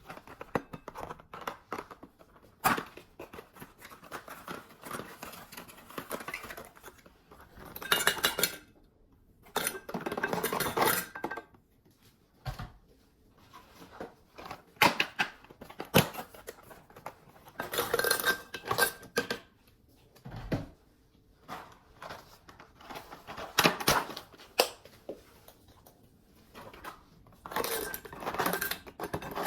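Dishes and utensils being handled: scattered clinks and knocks, with several noisy scraping or rustling bursts of about a second each.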